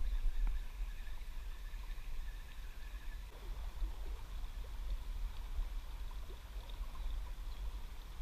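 Shallow river water flowing and lapping around a wading angler, under a steady low rumble.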